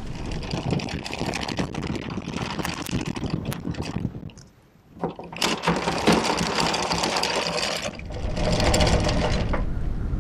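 Anchor chain running out in free-fall over a sailboat's bow windlass gypsy, a fast, steady metallic rattle. It breaks off briefly about four seconds in, then resumes.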